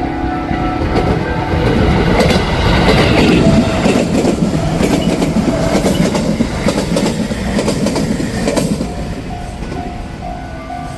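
Electric commuter train passing close by, wheels clattering over rail joints, loudest in the middle and fading toward the end. The level crossing's alternating two-tone warning bell rings under it, heard plainly again near the end as the train moves off.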